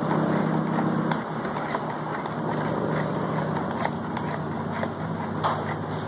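A spoon clicking and scraping against a plastic bowl as a watery slime mix is stirred, a few light taps scattered through it. A steady low hum runs underneath, strongest for about the first second.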